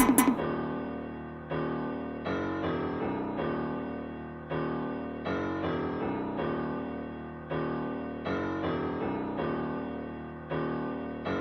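Instrumental outro of a hip-hop beat with the drums dropped out: sustained piano chords, a new one struck roughly every second and left to fade, until the music stops abruptly.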